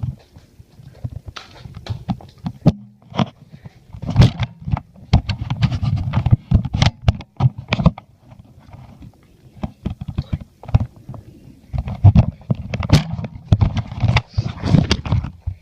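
Running footsteps and knocks from a jostled handheld camera: fast, irregular thumps and clicks. They ease off briefly about three seconds in and again around eight seconds.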